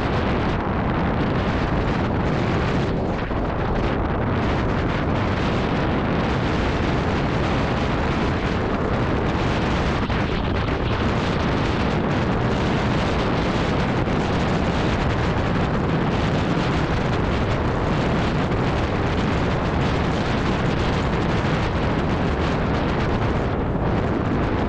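Loud, steady wind noise buffeting a GoPro's microphone, caused by riding an electric scooter at speed.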